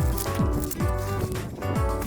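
Background music with a steady beat: pitched synth or instrument notes over a kick drum that hits about twice a second.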